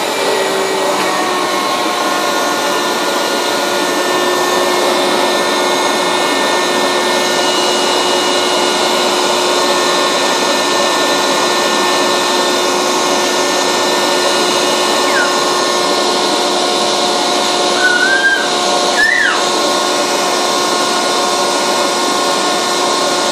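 Vacuum cleaner running steadily, its hose waved about on the floor, with a few short rising squeaks about two-thirds of the way through.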